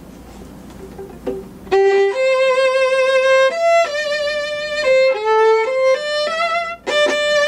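Solo violin playing a simple melody in the pentatonic mode, a string of held notes stepping up and down. It starts about two seconds in and breaks off briefly near the end.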